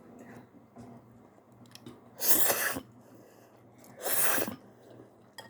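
Eating ramen noodles: quiet chewing and mouth sounds, with two short, loud, breathy bursts about two and four seconds in.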